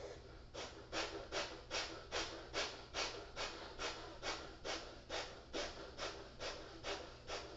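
Bellows breath (bhastrika pranayama): rapid, forceful breaths in and out. They come as an even run of breathy strokes, about two to three a second, starting about half a second in.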